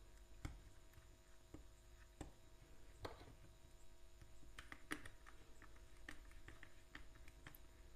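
Faint small clicks and scrapes of a screwdriver turning the wire terminal screw of a single-pole MCB, tightening a red wire into it, with the plastic breaker body being handled; the clicks come thickest past the middle.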